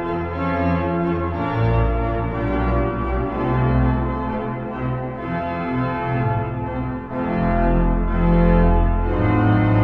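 Organ music playing slow, sustained chords over a bass line that moves to a new note every second or two.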